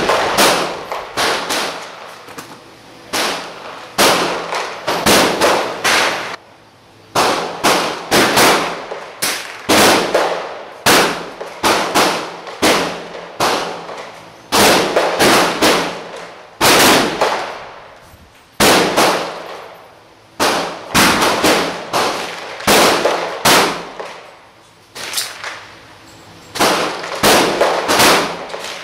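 Rifle shots at a shooting range, fired steadily at about one to two a second with a few short pauses, each sharp crack followed by a short echoing tail.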